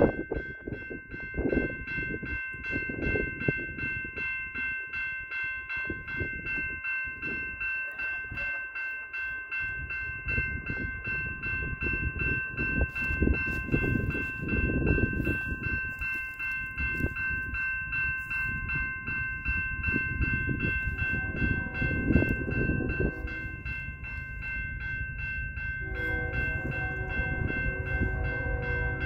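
Railway level-crossing warning bell ringing steadily and rapidly over a low rumble. Near the end an approaching CN freight locomotive's horn sounds a held chord.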